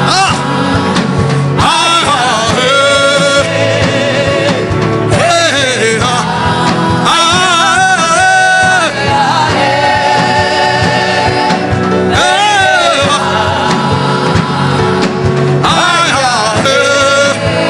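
Gospel worship singing with instrumental backing: wavering, sustained sung lines, a chant of praise taken up during the service.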